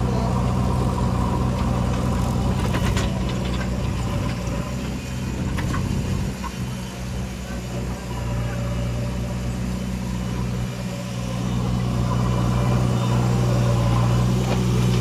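Diesel engines of a backhoe loader and farm tractors running steadily at low revs, with a few sharp clanks about three seconds in. The engine hum grows a little louder and steadier near the end.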